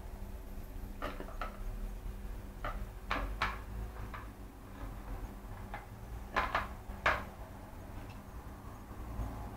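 Westie puppy nosing and shoving its blue plastic food and water bowls, the hollow plastic bowls knocking against each other and the floor in a string of light clacks, about ten of them at uneven intervals, some in quick pairs.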